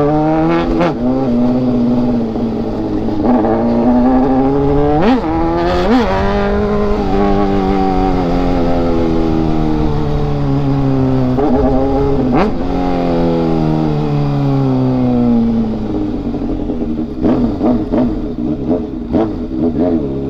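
Motorcycle engine under way, its pitch rising as it accelerates and falling as it eases off, several times over. There are brief sharp revs about five, six and twelve seconds in, and the sound turns choppier near the end.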